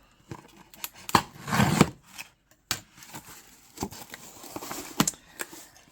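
A mystery box being opened by hand: tearing and crinkling of tape and packing, with several sharp clicks and knocks and a longer rustle about a second and a half in.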